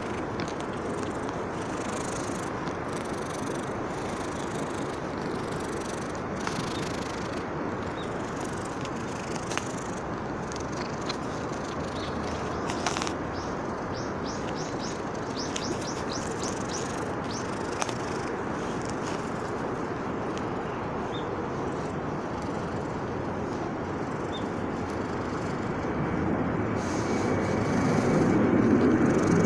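Steady outdoor background noise, with a few faint high ticks about midway, and a low rumble that swells over the last few seconds.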